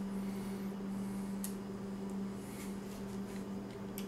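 A steady low hum throughout, with a few faint clicks of small metal parts being handled on a disassembled PT99 airsoft pistol frame, one about a second and a half in and another near the end.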